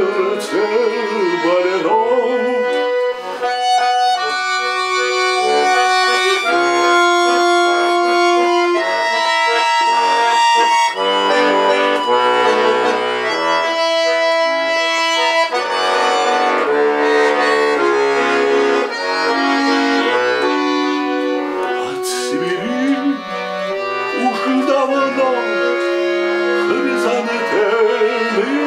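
Chromatic button accordion playing a slow melody over sustained chords, with notes held for a second or two at a time.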